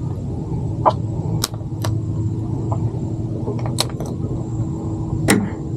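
A steady low engine hum, with a few sharp clicks and taps scattered through it.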